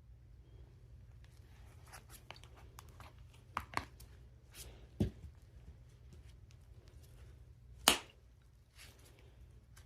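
Handling of a perfume box and bottle: scattered light clicks, taps and rustles, with one sharp click about eight seconds in.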